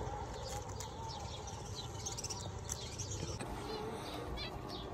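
Small cage birds chirping in an aviary: many short, high calls overlapping one another over a faint steady background.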